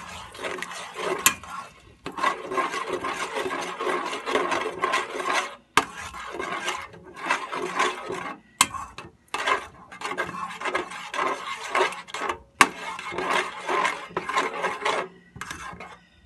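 A metal wire whisk scraping and stirring round the bottom of an enamel-lined pot of thick, wet gravy, in quick rhythmic strokes with a few short pauses and an occasional sharp click of metal on the pot.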